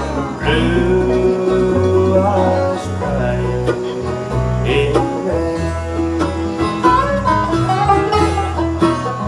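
Bluegrass band playing live without singing: banjo, mandolin, acoustic guitar, dobro and electric bass together, with a steady bass line under the picked strings.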